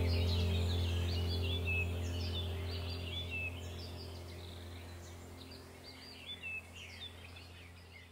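Birds chirping in quick, repeated short calls over a steady low hum, the whole gradually fading out.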